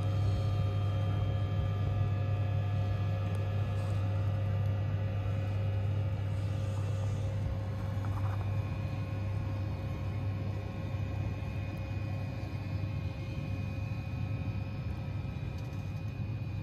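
VR Sr2 electric locomotive hauling a double-decker train slowly away: a steady low hum with thin, even electrical whining tones above it, a higher whine joining about halfway through.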